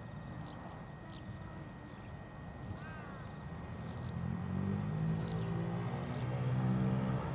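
Airship's engines running up for takeoff: a low engine hum that swells steadily louder from about four seconds in. Birds chirp faintly before it.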